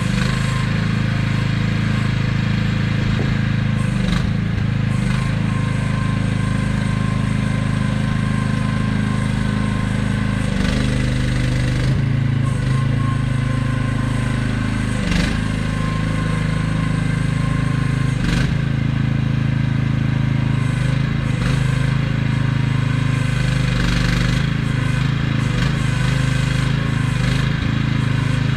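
AGT QH12R mini excavator's small engine running under working load, its pitch shifting as the hydraulics are worked, with a few sharp knocks from the machine.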